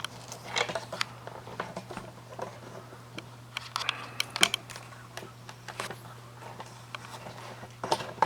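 Scattered clicks, taps and light knocks of a camera being handled and fitted onto a tripod, over a faint steady low hum.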